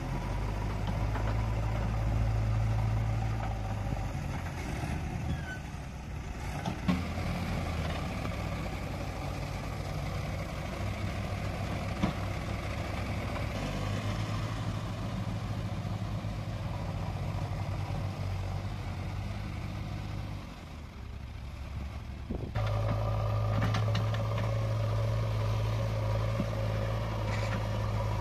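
Diesel engines of a JCB 3DX backhoe loader and a loaded farm tractor running in a steady low drone, the engine note rising and falling with the work. The sound drops off for a moment about three-quarters of the way through and then comes back louder, with a couple of short knocks earlier on.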